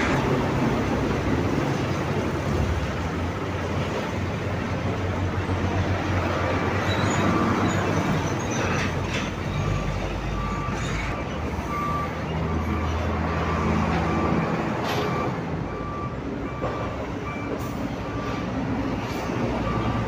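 Scania truck's diesel engine running under load as it slowly reverses a multi-axle low-bed trailer. From about halfway through, a reversing alarm beeps steadily, a little over once a second.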